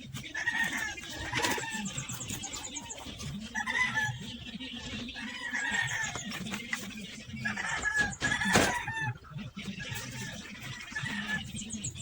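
Chickens clucking and calling again and again, with a few sharp knocks in between, the loudest about eight and a half seconds in.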